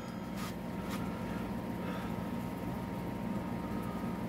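A steady machine hum with a faint even hiss, unchanging throughout.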